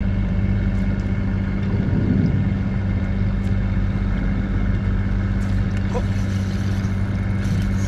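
Boat engine running at a steady idle, a constant low hum with wind and water noise over it, and a few faint clicks.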